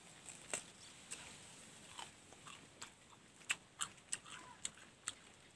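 Someone biting into and chewing a crisp, fresh wax apple (rose apple): a string of about ten sharp, irregular crunches, faint overall.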